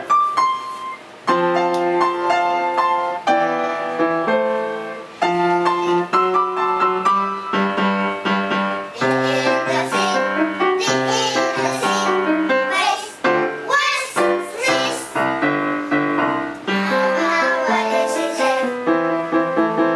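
Background music led by piano, a melody over chords that goes on without a break.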